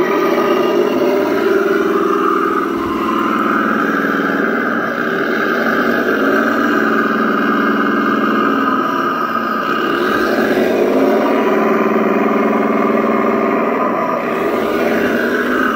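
The RC Leopard 2A4 tank's onboard sound module plays a simulated tank engine running steadily through its small speaker, shifting pitch a few times.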